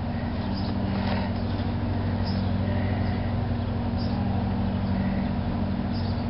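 Steady low mechanical hum over an even background hiss, with a few faint short high chirps now and then.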